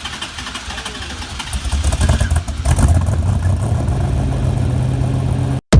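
A car engine running, getting much louder about three seconds in as it revs up close. It cuts off abruptly near the end.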